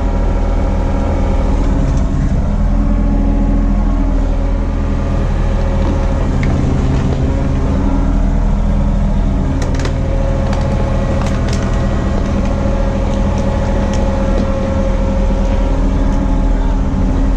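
Diesel engine running steadily at a constant speed, with a few light clicks and knocks partway through.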